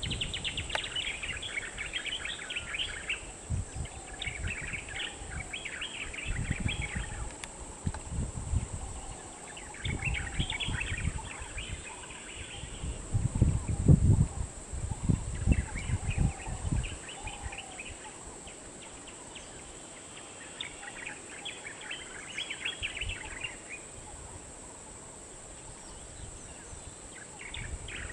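Birds singing in repeated bursts of rapid chirps, each burst lasting two or three seconds. Underneath runs a steady high hiss and irregular low rumbling thuds that are loudest about halfway through.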